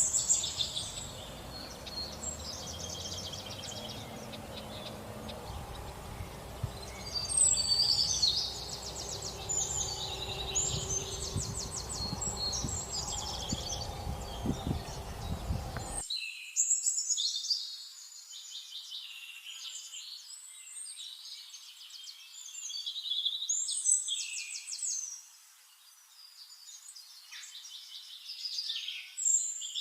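A flock of sparrows chirping continuously, short repeated notes and quick trills from several birds at once. A low background rumble underneath cuts off abruptly about halfway through.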